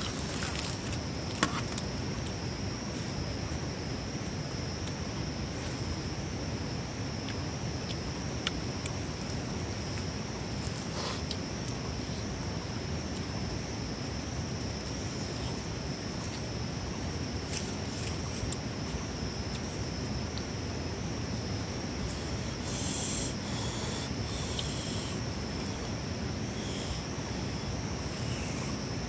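Close-up eating sounds: chewing roasted meat and rice eaten by hand, with a few small clicks. A steady high-pitched hum runs underneath.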